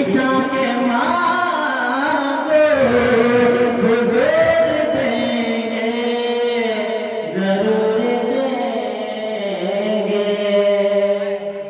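A man singing a naat, a devotional song in praise of the Prophet, solo and unaccompanied by any clear instrument, in long held notes with ornamented bends in pitch.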